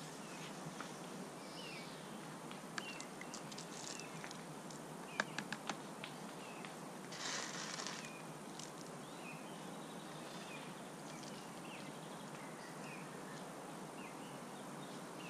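Outdoor background by a lake: a steady faint hiss with small birds chirping now and then, a few sharp clicks about five seconds in, and a short rustle a little after seven seconds.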